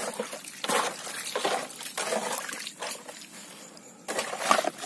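Wet, irregular splashing and sloshing from live mullet lying in shallow water in a fishing boat's hold as they are handled.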